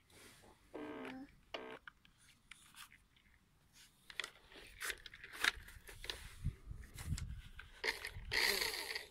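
Plastic body of a remote-control toy car being handled and turned over in the hands: scattered light clicks, taps and scrapes, with a louder rustling burst near the end.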